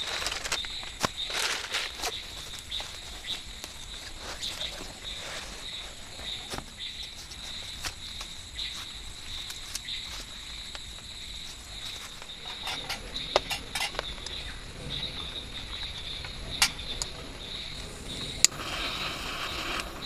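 Rustling and scuffing of rubber boots being pulled off and rubber sandals slipped on over grass, with several sharp clicks, over steady high-pitched insect chirring.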